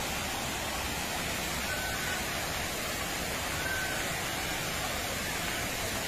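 Waterfall pouring over a wide rock ledge in several cascades: a steady, even rush of water.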